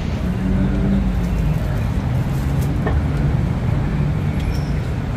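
Road traffic on a city street: motor vehicle engines running and passing, a steady low-pitched hum with a drifting engine tone, and a few light clicks.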